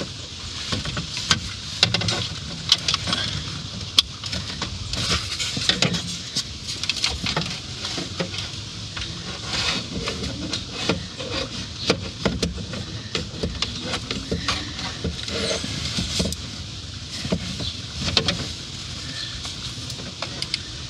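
Plastic center-dash trim of a Ford F-150 being handled and fitted back into place: irregular clicks, taps and rubbing throughout.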